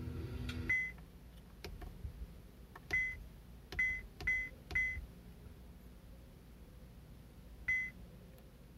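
CASKA CA 3631 car head unit giving short, high key-confirmation beeps as its controls are pressed, six beeps of the same pitch in all. The first, under a second in, comes as the DVD film sound cuts off and the unit leaves playback for its menu. A lone beep follows, then a quick run of three, and a last one near the end.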